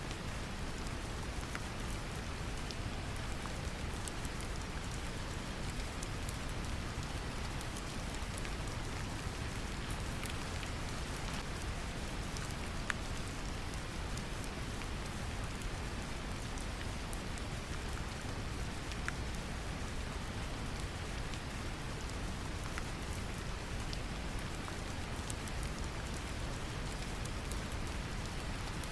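Steady brown noise, a deep even rumble, mixed with gentle rain pattering with scattered faint drop ticks.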